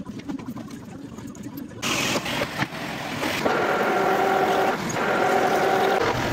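Metal lathe turning a part in its chuck while the cutting tool takes a cut under coolant. It starts with quieter workshop noise, then a sudden loud steady machine sound about two seconds in, and from about three and a half seconds a steady whining tone from the cut that breaks off briefly near the five-second mark.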